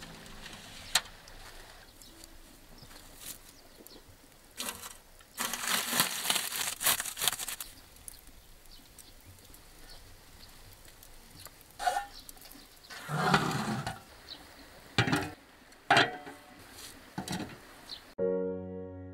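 Irregular scraping and rustling with a few sharp metallic clicks as marinated meat is hung on wire hooks inside a galvanised metal bucket smoker and stones are set on its metal lid. Music comes in near the end.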